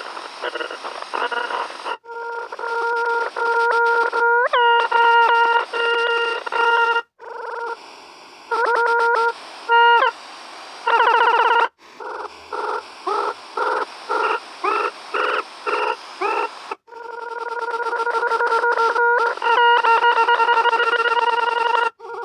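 Synthesized electronic tones from the Desmos graphing calculator's sound feature: a steady buzzy tone, broken by sudden upward pitch sweeps, strings of short beeps at about two a second, and a wavering stretch. The sound cuts out abruptly several times, and near the end a steady tone grows louder.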